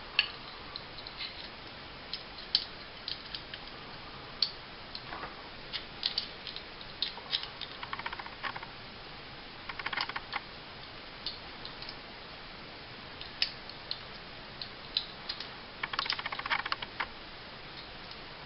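Light metallic clicks and taps of pistol parts being handled and fitted together, with a few short rasping scrapes, as a compact 1911-style handgun is reassembled.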